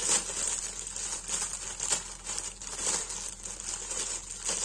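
Clear plastic gift bag printed with Christmas trees crinkling and rustling as it is handled, shaken and opened by hand, with irregular crackles throughout.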